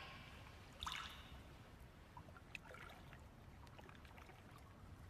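Near silence: faint water sounds of an indoor swimming pool, small trickles and ticks, with one brief soft noise about a second in.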